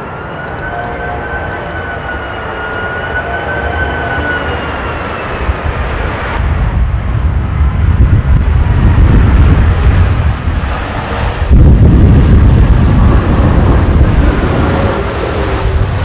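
Airbus A330-243 airliner on final approach, its Rolls-Royce Trent 700 turbofans running with a high, gently wavering whine over a deep rumble. The rumble grows louder through the second half as the jet passes close.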